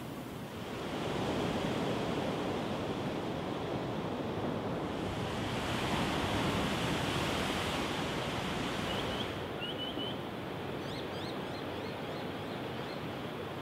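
Ocean surf: a steady rush of breaking waves that swells about a second in and eases after about nine seconds. A few short, high bird chirps come near the end.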